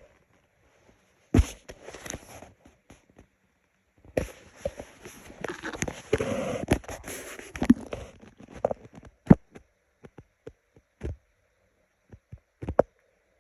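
Hungry stomach growling and gurgling, picked up close against the belly: a short burst about a second in, a longer run of gurgles from about four to nine seconds, then scattered pops and clicks.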